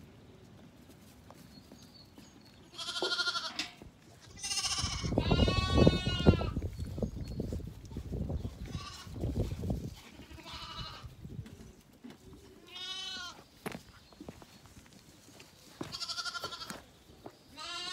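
Zwartbles lambs bleating repeatedly: about eight wavering calls, the longest and loudest about five seconds in. Between about five and ten seconds in there is also low bumping and rustling close to the microphone.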